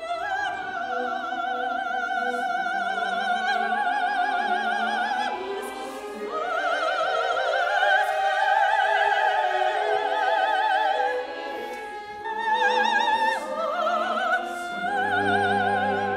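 Operatic soprano singing long, high, held notes with a wide vibrato, accompanied by orchestral strings. A low sustained note enters near the end.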